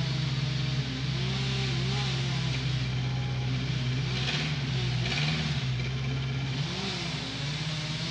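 An engine running steadily at high throttle, briefly dipping about four and five seconds in as a rougher hiss swells, as though it is taking load.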